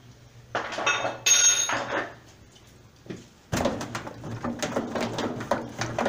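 Metal clanking and scraping from work on a top-load washing machine's wash basket and centre shaft. A clattering strike with a brief metallic ring comes about a second in, and from about three and a half seconds in a continuous rattling clatter follows.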